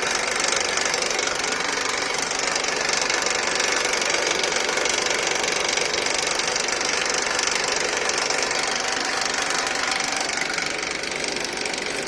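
Honda Accord's K24 2.4-litre four-cylinder engine running with a steady, rapid rattling noise.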